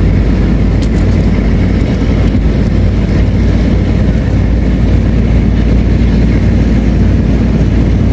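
A large engine idling close by, a steady low drone with a hum that does not change.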